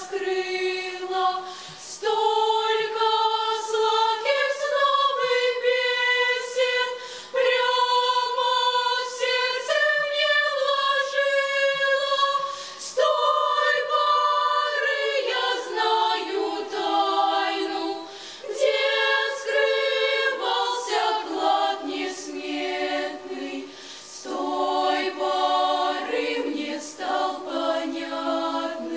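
Mixed youth choir of girls and boys singing a cappella in several parts at once, in held phrases with short breaks between them.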